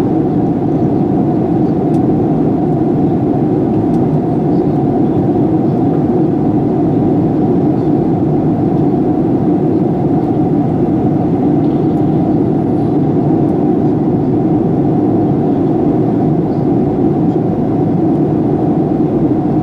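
Steady cabin noise inside a Boeing 737-800 in flight: the drone of its CFM56-7B turbofan engines mixed with the rush of air over the fuselage, a constant deep hum at an even level.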